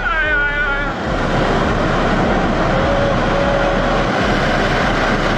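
Steady roar and rumble of a landslide of rock and earth pouring down into a river, churning the water. A person's drawn-out wavering cry fades out about a second in.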